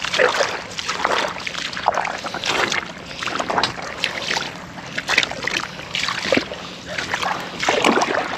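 Footsteps squelching and splashing through wet mud, about one or two steps a second.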